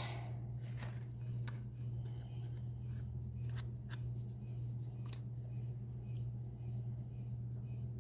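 Faint, scattered clicks and light rustles of paper pieces being handled, over a steady low electrical hum.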